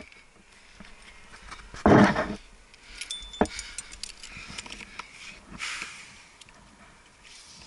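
A climber's heavy breath of effort, one loud short exhale or grunt about two seconds in, then a sharp click a little over a second later and a softer breath near six seconds.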